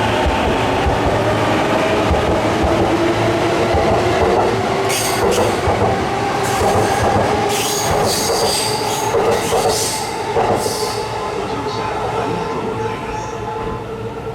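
Electric commuter train running into the platform and braking, with the motor whine drifting slightly lower. From about five seconds in, a series of high-pitched wheel and brake squeals sounds, and the train noise eases off as it comes to a stop.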